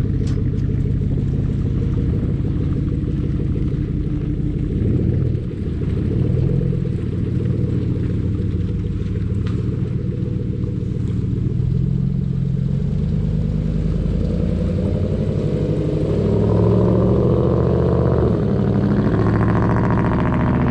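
Ford F-150 pickup's engine running under varying throttle as the truck is driven, a deep rumble whose pitch shifts several times and rises and grows louder near the end.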